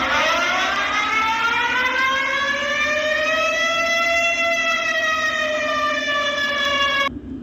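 Emergency-alert siren sounding one long wail. It comes in abruptly, slowly rises in pitch, levels off, then sags slightly before cutting off suddenly near the end.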